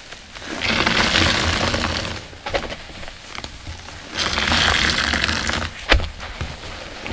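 A sponge full of thick shampoo suds squeezed by hand twice, each squeeze a long hiss of water and foam pressed out, with small clicks of popping foam between the squeezes.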